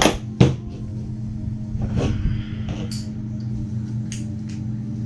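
Small metal clicks and knocks as the follower and springs of a rifle's magazine assembly are worked loose by hand, the sharpest one just under half a second in, over a steady low hum.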